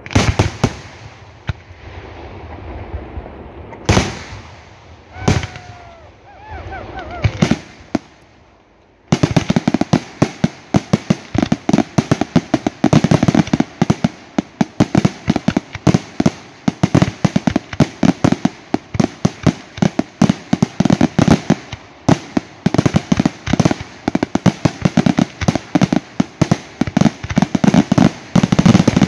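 Fireworks display: a few separate loud shell bursts, then about nine seconds in a rapid, unbroken barrage of bangs begins and keeps going.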